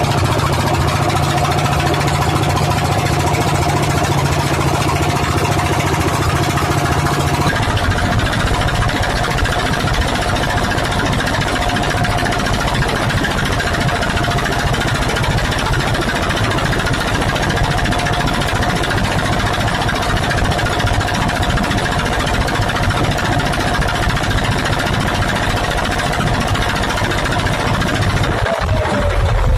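Fishing boat's engine running steadily under load, with a steady hum over a loud wash of noise. Its low note changes abruptly about seven seconds in, and its pitch falls near the end as it slows.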